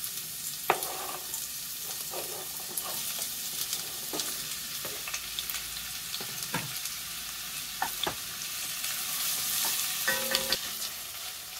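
Chopped onions and garlic frying and sizzling in an enamelled casserole pot, stirred with a wooden spoon that knocks and scrapes against the pot now and then.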